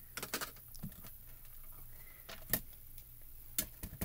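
A few scattered light clicks and taps of hands on a MISTI stamping platform's clear acrylic door and stamp as the stamp is pressed and the door lifted, with one sharper click about two and a half seconds in.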